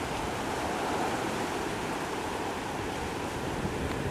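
Rough sea surf and wind making a steady, unbroken rushing noise.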